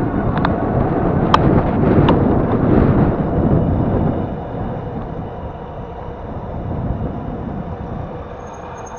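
Wind and road rumble on a camera riding on an electric bicycle through city traffic, with a few sharp clicks in the first two seconds. The rumble eases after about four seconds.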